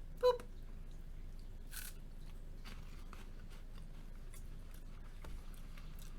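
Quiet chewing and crunching of a crisp wafer cookie, with a few faint, short crackles.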